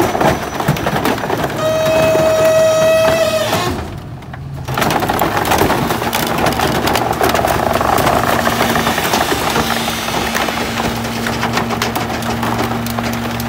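Rear-loader garbage truck's hydraulic packer crushing a white household appliance in the hopper: continuous cracking and crunching. About two seconds in, a steady squeal lasts under two seconds, followed by a brief lull. After that a steady hydraulic hum runs under the crunching.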